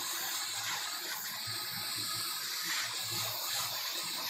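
Hot air rework station blowing a steady hiss of hot air through its nozzle onto a laptop motherboard, reflowing a chip's solder. A faint low hum from the unit runs under the hiss.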